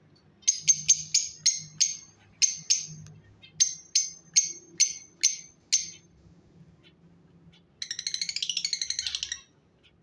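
Lovebirds calling: about fourteen sharp, shrill chirps in quick succession over roughly five seconds, then a fast chattering trill near the end.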